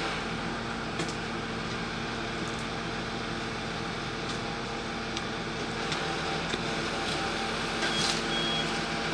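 Lorry engine running steadily to drive a truck-mounted crane's hydraulics as the crane grab lowers a pack of building materials, with a few light clicks and knocks and a short high beep near the end.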